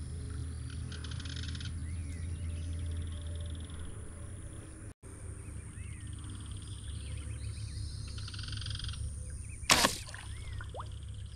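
Short pulsed animal trills come and go over a steady low rumble. About ten seconds in, one loud, sharp crack as a slingshot rifle's rubber bands fire a fishing arrow at a fish.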